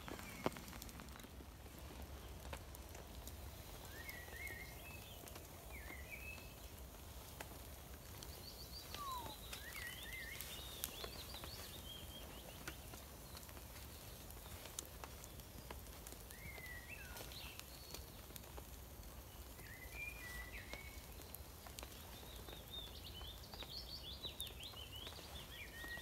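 Songbirds singing short chirping phrases every few seconds over the low crackle of a campfire and a steady low rumble.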